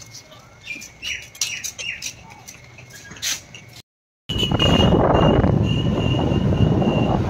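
Birds chirping in short, quick calls, with a few light clicks, for the first few seconds. After a cut, loud steady wind rushing over the microphone with a steady high whine, riding pillion on a moving motor scooter.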